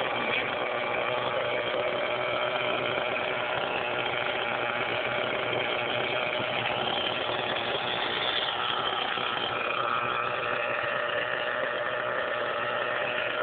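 Small engine of an OFNA radio-controlled car running steadily, its pitch drifting a little.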